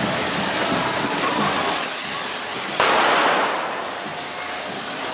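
Correfoc fireworks spraying sparks, a continuous hissing and crackling, with a sudden louder rush of hiss about three seconds in as another one flares up.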